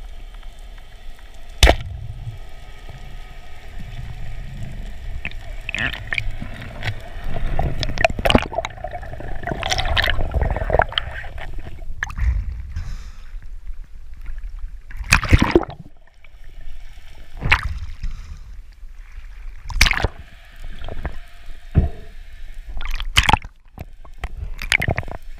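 Underwater water sounds from a diving camera: gurgling, bubbling and sloshing, broken by scattered sharp clicks and knocks, with a faint steady hum for about the first half.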